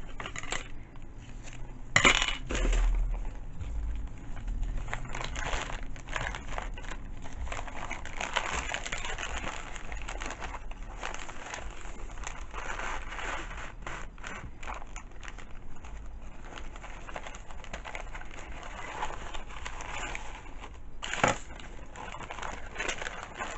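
Paper and craft materials handled on a tabletop: rustling and crinkling with scattered clicks and light knocks. The loudest knocks come about two seconds in and again near the end.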